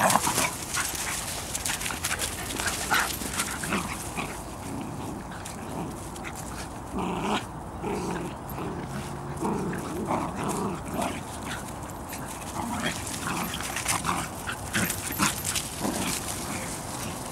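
Bedlington Terrier and puppies play-fighting, making short bursts of dog vocalising, thickest from about seven to eleven seconds in, among brief clicks and rustles.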